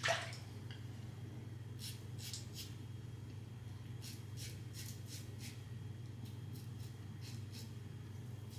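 Mühle R89 safety razor scraping short strokes through lathered stubble under the nose, in runs of about three strokes a second from about two seconds in, over a steady low hum. A brief louder whoosh comes right at the start.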